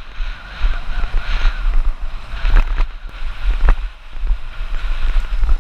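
Wind buffeting the camera microphone on a fast downhill run on a hardtail dirt jump bike, with the bike rattling and clattering over the rough dirt trail and two louder knocks in the middle.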